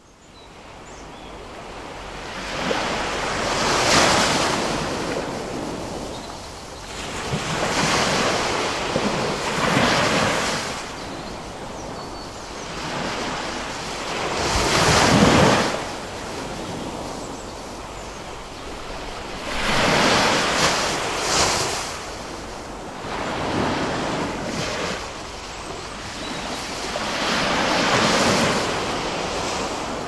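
Ocean surf: waves breaking and washing back, swelling and fading every few seconds. It fades in from silence at the start.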